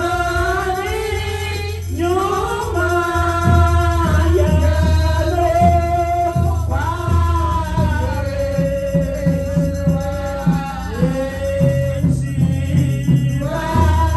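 Church worship music: a song sung over a band with a heavy bass line and a steady beat.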